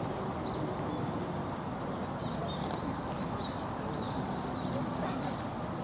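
Outdoor garden ambience: a steady murmur of background noise with small birds chirping repeatedly in high, short calls, and a few sharp clicks about two and a half seconds in.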